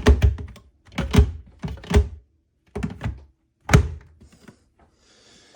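Plastic clunks and knocks from the water tank of a Nescafé Dolce Gusto coffee machine being taken off and handled: about seven short knocks in the first four seconds, followed by a faint hiss near the end.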